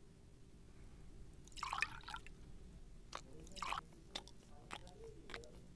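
Water poured from a small metal vessel over hands, splashing into a steel bowl in two short pours, with a few faint clicks of metalware.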